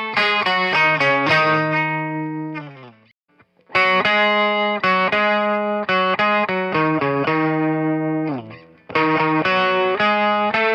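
Electric 12-string guitar playing a jangly picked phrase of single notes and chord tones. The phrase plays twice; each time it ends on a held chord that fades to a brief stop before the next begins.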